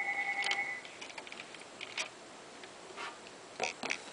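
Scattered light clicks and taps of LEGO plastic as the knob on the LEGO X-Wing Fighter 6212 is turned to let its rubber bands spread the wings. A steady pulsing tone cuts off about a second in.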